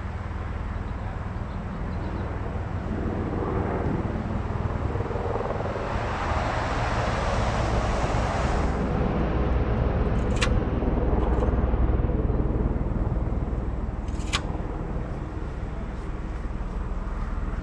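Steady low street rumble with a vehicle passing by, its noise swelling for a few seconds and fading, then two sharp clicks a few seconds apart.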